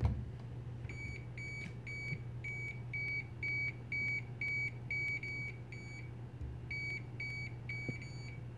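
OWON OW16A multimeter's buzzer beeping in non-contact voltage (NCV) mode, short high beeps about three a second, signalling that it senses live mains voltage at the outlet. The beeping starts about a second in, breaks off briefly about six seconds in, then resumes.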